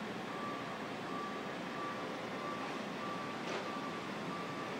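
A construction vehicle's reversing alarm beeping at an even pace, about one and a half beeps a second, over steady background noise, with one short, sharp sound about three and a half seconds in.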